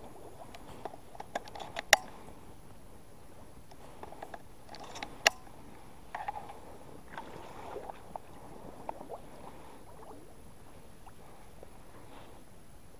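Small boat being paddled through shallow water among reeds: paddle strokes swishing and dripping, with a few sharp knocks against the boat, the loudest about two and five seconds in, and quieter strokes later.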